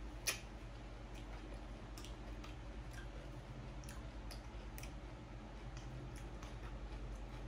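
Quiet eating and food-handling sounds: scattered light clicks and taps, one sharper click just after the start, over a low steady hum.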